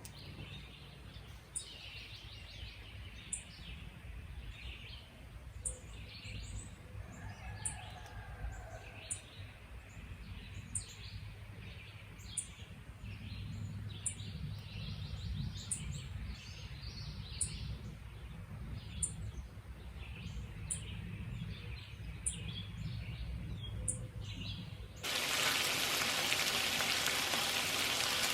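Many birds singing over a low rumble, with a faint high tick repeating about every second and a half. Near the end it cuts suddenly to the steady rush of a waterfall.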